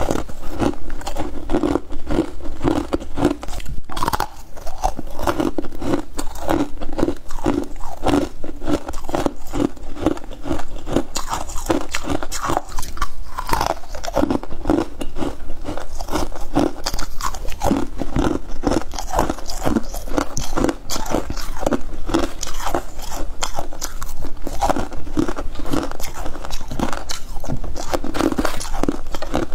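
Close-up biting and chewing of freezer frost chunks: continuous crunching of soft, snowy ice scraped from a freezer.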